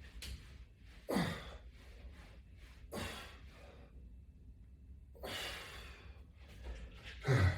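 A man breathing hard from the effort of a resistance-band exercise: four forceful exhalations about two seconds apart, the last the loudest.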